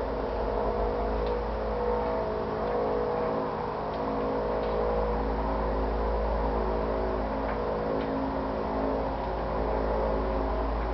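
A steady droning hum of several held tones over a constant low rumble, from a recording put forward as the sound of a UFO.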